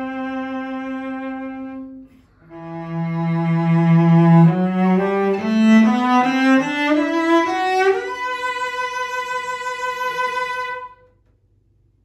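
1931 John Juzek 'Master Art' cello, Stradivari model, being bowed. A held note breaks off, and after a short pause a low note leads into a run of notes climbing in pitch. The run ends on a long high note with vibrato, which stops shortly before the end.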